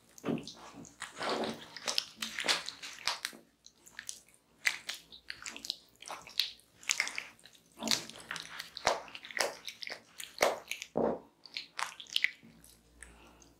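Hands rubbing and sliding over skin coated in blended fruit pulp: a string of short, wet, irregular strokes, about one or two a second.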